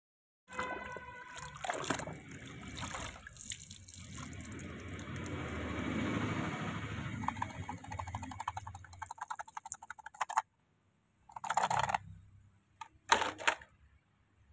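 Water sloshing and splashing as a plastic toy jeep is swished by hand through a tub of muddy water. The sound stops abruptly about ten seconds in, then comes two short bursts of wet noise.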